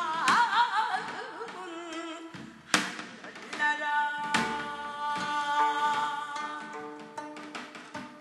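Background music in an instrumental stretch between sung verses. A wavering vibrato melody opens it, then sustained chords follow with sharp percussion hits.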